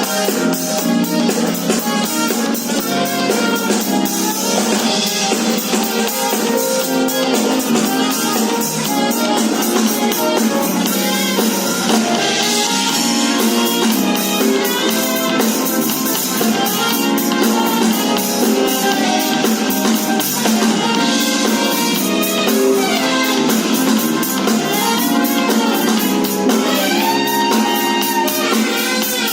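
Saxophone playing over a backing track with drum kit and guitar, the sound thin with almost no deep bass.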